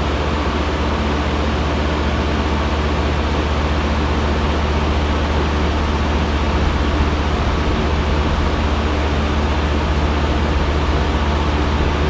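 2022 Heil PHJ4 3.5-ton package heat pump running steadily in cooling mode: a low compressor hum under the even rush of air from the condenser fan.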